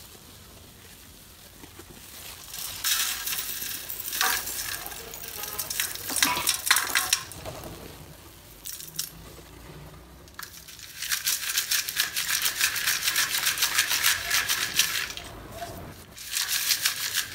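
Brittle shards of roasted multani mitti (fuller's earth) clattering in a steel mesh sieve, first as they go in, then rattling as the sieve is shaken. There are two long spells of dense, fast clicking, each about four to five seconds, with shorter rattles near the end.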